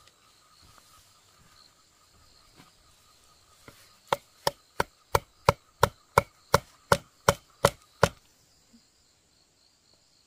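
A blade chopping: about a dozen sharp, evenly spaced strikes, roughly three a second, starting about four seconds in and stopping abruptly after about four seconds.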